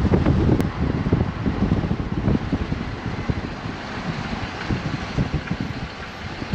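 Wind buffeting the microphone: a gusty, rumbling noise that eases off over the few seconds.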